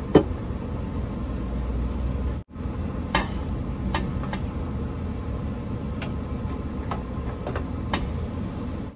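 Dishes and a pan knocking and clinking against a stainless-steel sink while being washed up: a sharp knock just after the start, then a handful of lighter clinks about a second apart, over a steady low background hum.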